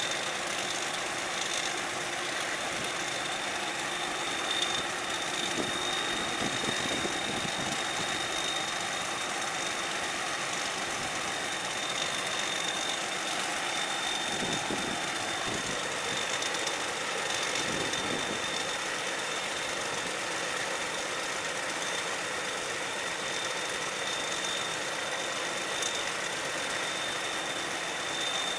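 Combine harvester's diesel engine running steadily, with a constant high-pitched whine over it.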